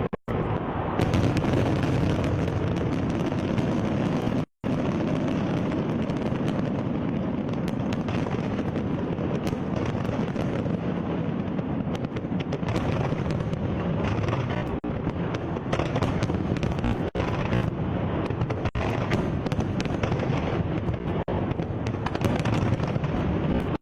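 Dense, continuous fireworks barrage: overlapping bangs and crackles with no let-up, broken by two sudden, very short dropouts, one at the very start and one about four and a half seconds in.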